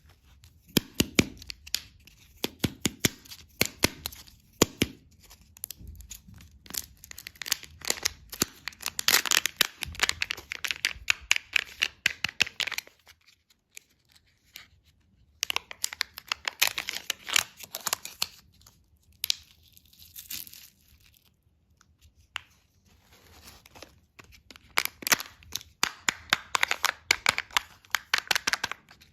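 Plastic candy packaging crinkling and tearing as it is unwrapped by hand. It comes in runs of dense sharp crackles, with two short pauses.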